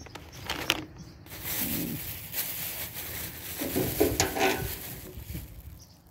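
Plastic candy wrapper crinkling and rustling as hands pull and work at it, with a few small clicks near the middle.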